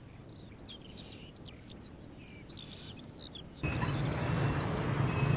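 Small birds chirping as short, high, quick notes over quiet ambience. About three and a half seconds in, a louder steady background hum cuts in abruptly, and the chirps carry on over it.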